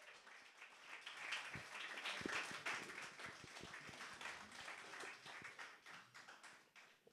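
A small audience clapping, building over the first second, peaking a couple of seconds in, then thinning out toward the end.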